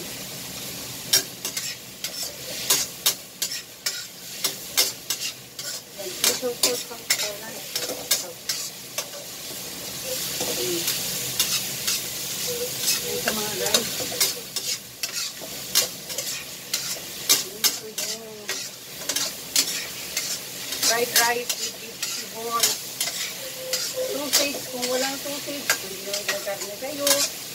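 Metal spatula scraping and clinking against a stainless steel wok as chopped vegetables are stir-fried, with a steady sizzle of frying underneath. The sizzle swells for a few seconds about ten seconds in, and the clinks come in quick irregular runs.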